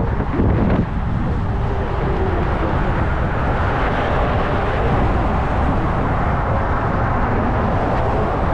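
Steady rushing noise of wind and road from a moving e-bike, picked up on its camera microphone.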